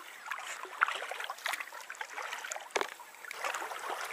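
Kayak paddle strokes in calm water: soft splashing and dripping as the blade dips and lifts. A few short, sharp splashes stand out, one about a second and a half in and another near three seconds.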